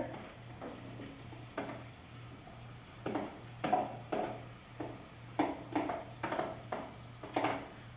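Metal spoon scraping and tapping chopped seasoning off a plate into a metal pot: a string of sharp clicks and scrapes, sparse at first and more frequent in the second half.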